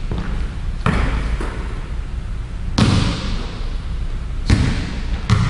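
Basketball bouncing on a hardwood gym floor: four or five sharp bounces at uneven spacing, each ringing out in the gym's echo.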